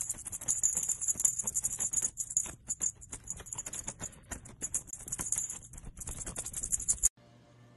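Tabby kitten hissing and spitting in a long, nearly unbroken run of harsh, crackly hisses with a few short breaks. The hissing cuts off abruptly about seven seconds in.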